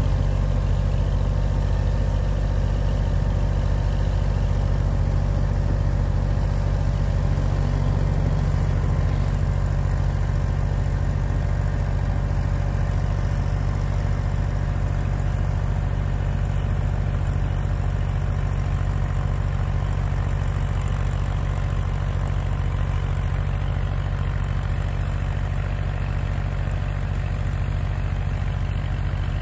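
Kubota L2501 compact tractor's three-cylinder diesel engine running steadily under load, driving a 68-inch MK Martin Meteor rear snowblower that is throwing deep snow.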